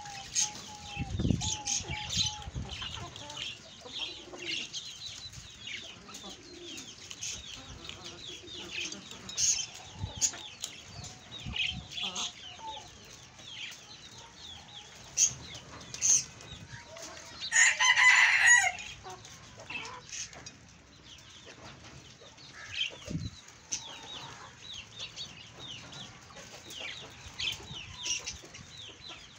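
Aseel chickens clucking as they feed, over many short, high chirps, with one loud call lasting about a second roughly eighteen seconds in.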